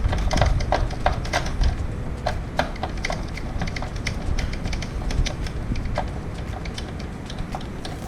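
Irregular light clicks and taps of an Epson L360 printer's plastic parts being handled and fitted back into place during reassembly, over a low background rumble.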